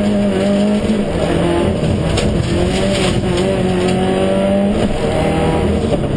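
Subaru Impreza STI rally car's turbocharged flat-four engine running hard, heard from inside the cabin; the pitch climbs through a gear and drops at a gear change a little before the end.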